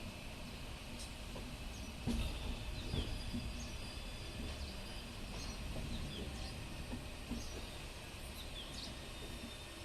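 Small birds chirping, short downward-sliding calls repeated again and again, over a steady low rumble. Two louder thumps come about two and three seconds in.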